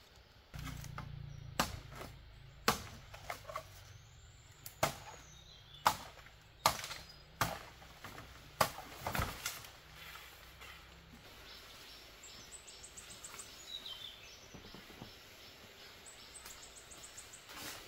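Bamboo being cut: about a dozen sharp, woody cracks at irregular intervals over the first ten seconds, then faint bird chirps.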